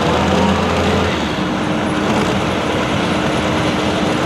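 Hot farm pulling tractor's diesel engine running loud and steady, its low drone shifting about a second in.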